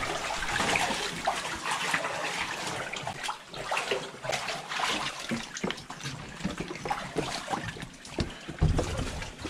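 Water splashing and sloshing in irregular strokes as people move through the water of a flooded mine adit.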